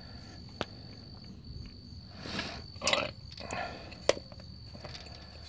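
Light clicks and soft scuffs of rubber and polyurethane truck body mount parts being handled on a concrete floor. A sharp click comes about four seconds in, over a faint, steady, high-pitched tone.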